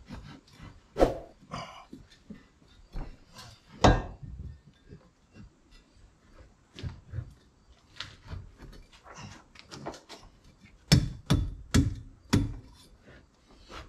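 Knocks and clunks of a metal rear strut brace bar being forced by hand into line with the strut mounts, with a run of four hard knocks near the end, among quieter clicks and rustling.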